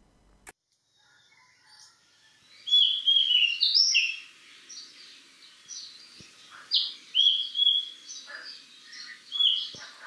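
Oriental magpie robin singing a varied run of short, clear whistled notes, some sliding up or down, starting about two and a half seconds in after near silence. It is mimicking other birds' calls, in which the narrator hears a little of the plaintive cuckoo.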